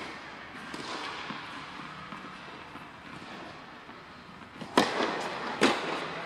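Tennis racket striking the ball twice, just under a second apart, each a sharp pop echoing in a large indoor court hall: a serve and then the return from across the court.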